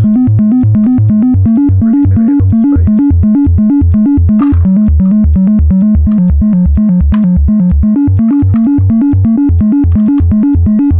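Make Noise 0-Coast synthesizer playing a fast, evenly repeating arpeggiated bass pattern, its notes stepping between a few low pitches, sent its notes as MIDI by the Cthulhu arpeggiator and recorded dry without effects. Loud and steady, with a few short clicks over it.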